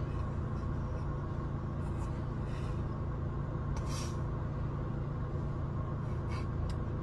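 Steady low rumble of a car heard from inside the cabin, with a few faint brief hissing noises over it.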